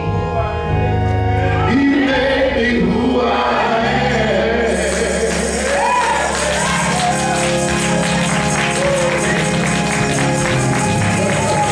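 Live gospel music: a man singing into a microphone over band accompaniment, with hand clapping and a jingling shimmer joining about five seconds in.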